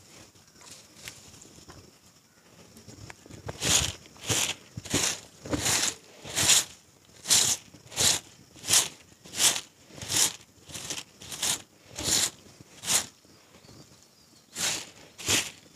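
Brisk sweeping strokes of a hand broom on a bare earth yard, a regular swish about one and a half times a second. They start a few seconds in and pause briefly near the end before resuming.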